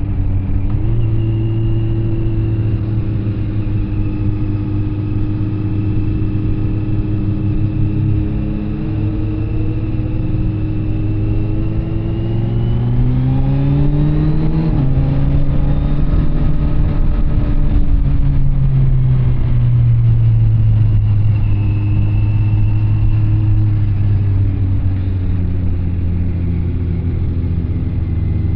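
Kawasaki Z900 SE's inline-four engine running through an SC Project CR-T carbon exhaust while riding: a steady cruising note, then revs rising about halfway through, a quick drop as it shifts up, more revs, and the engine easing back down after that.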